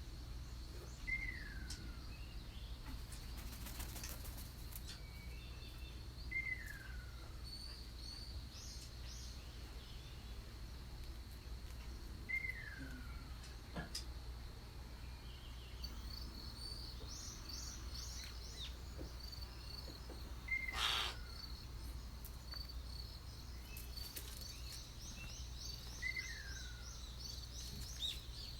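Wild birds calling: one bird repeats a short whistle that falls in pitch, about every five to six seconds, while another gives bursts of fast, high, rapid chirps later on. A steady low hum and a faint steady high tone sit underneath.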